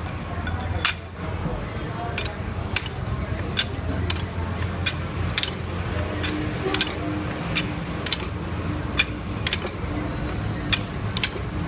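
Sharp metallic clinks of metal parts and tools being handled, repeating about once or twice a second, over a steady low machine hum.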